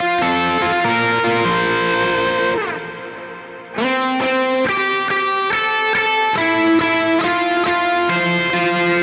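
Electric guitar played through a Line 6 POD X3 Live multi-effects unit on a distorted tone with worship-style ambient reverb. Sustained notes ring over each other, and a bent note dies away about three seconds in before a fresh run of notes starts.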